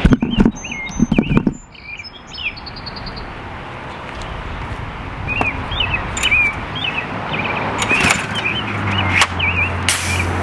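Songbirds chirping again and again over a steady background hiss, with a few loud knocks in the first second and a half.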